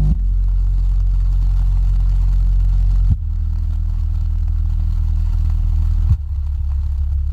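Yamaha YST-SW030 8-inch subwoofer playing steady low test tones that step to a new pitch about every three seconds, with changes just after the start, at about three seconds and at about six seconds.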